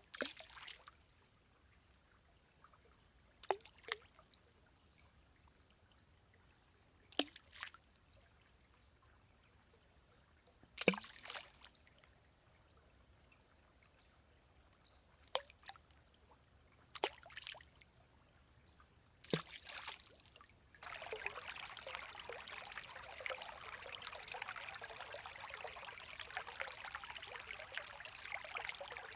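Forest stream water: about eight separate drops or small gurgles plopping into water, each with a quick falling tone, spaced a few seconds apart. About 21 s in, a continuous trickle of running water starts abruptly and carries on steadily.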